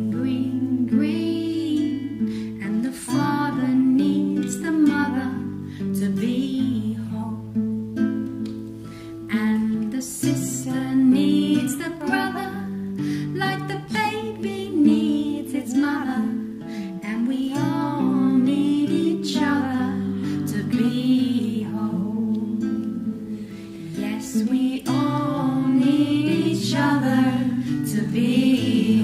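Devotional song: singing that glides up and down over steady strummed acoustic guitar chords.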